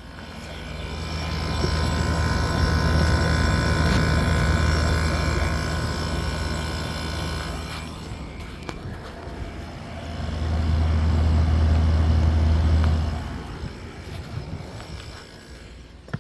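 The outdoor side of an 8,000 BTU window air conditioner running in cooling mode: the compressor's steady low hum with the condenser fan blowing. It swells louder twice, and a few higher steady tones sound over the first half and stop about eight seconds in.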